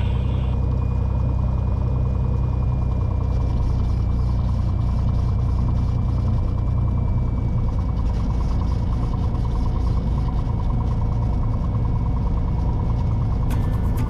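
Cessna 182T's six-cylinder Lycoming IO-540 engine running steadily at low taxi power, heard from inside the cabin.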